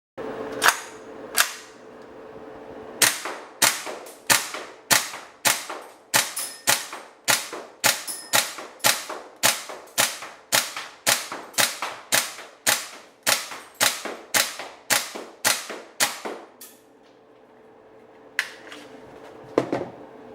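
New Wave MP7A1 gas blowback airsoft gun firing. The shots come singly in semi-auto, two at first and then a steady string of about three a second, each a sharp report with the slide clacking back. Near the end come a few lighter mechanical clacks.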